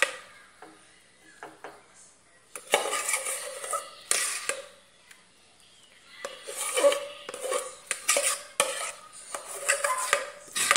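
A metal spoon scraping and clinking inside an aluminium pot as thick mashed potato is scooped out, in three bouts of a second or two with quiet pauses between them.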